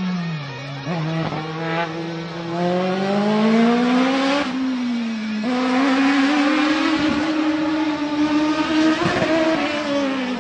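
Race car engine revving hard, its pitch climbing and dropping back sharply several times as the car accelerates, lifts off and accelerates again, then falling away near the end.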